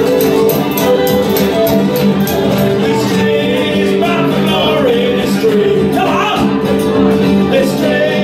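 Live acoustic folk band playing: a fiddle carries held notes over a strummed acoustic guitar, and a voice comes in singing about halfway through.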